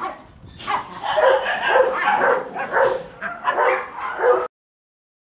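Puppies yipping and barking in play, many short calls in quick succession, cutting off suddenly about four and a half seconds in.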